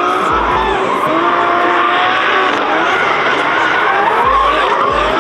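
Drift cars' engines revving hard, their pitch climbing and falling over and over as the cars slide, over the rushing noise of tyres skidding on the tarmac.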